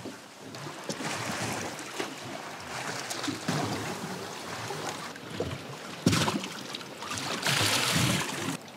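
Water slapping and lapping against a small boat's hull, with wind buffeting the microphone in uneven gusts. A sharp knock comes about six seconds in, and a louder gust near the end cuts off suddenly.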